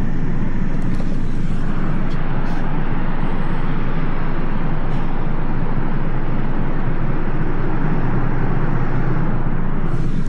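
Steady wash of road traffic noise, with no single vehicle standing out and a few faint ticks.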